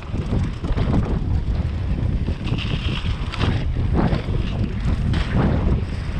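Wind buffeting an action camera's microphone on a moving mountain bike, over the rumble and rattle of tyres rolling on a dirt trail strewn with dry leaves. A brief high-pitched sound comes about two and a half seconds in.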